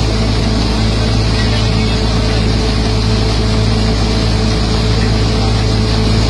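Combine harvester's engine and threshing machinery running steadily at working speed while it unloads wheat grain through its auger: a constant, loud mechanical drone with a steady hum.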